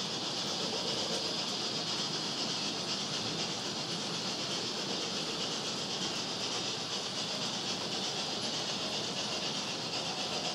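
HO-scale model train running along the layout track: a steady, even whirring hiss with no break.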